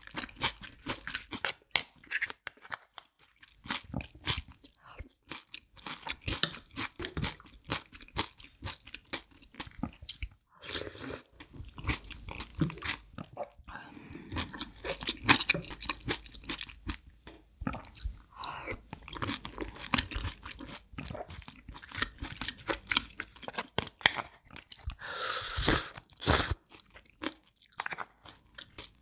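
Close-miked eating of soy-sauce marinated crab: crunching and chewing, with many short clicks and smacks. One louder, longer noisy sound comes about 25 seconds in.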